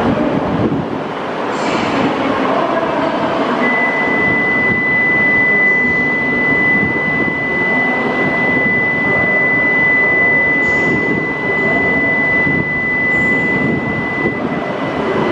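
Steady station noise on a Shinkansen platform, with an E5-series Hayabusa train standing at the platform. A single steady high-pitched tone comes in a few seconds in and holds until near the end.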